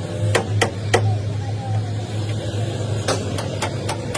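A series of sharp knocks, three within the first second and a quick run of about five near the end, over a steady low hum.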